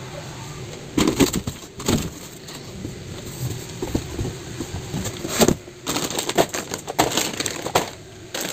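Plastic snack-chip packets crinkling and cardboard box flaps rustling as they are handled, in irregular crackly bursts that start about a second in.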